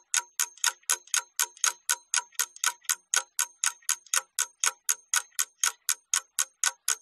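Clock-ticking sound effect, even ticks at about four a second, serving as a timer while the exercise is worked on.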